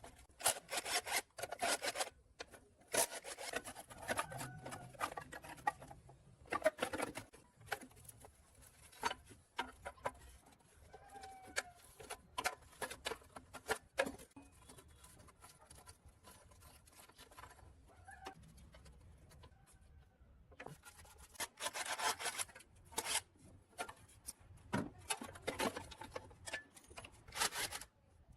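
Hand-tool scraping and rubbing on a part, in irregular runs of short strokes with a quieter stretch in the middle.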